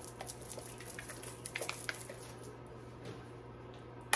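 Faint scattered small clicks and squishes from gloved hands handling a bottle of hair dye, ending in a sharper click, over a steady low hum.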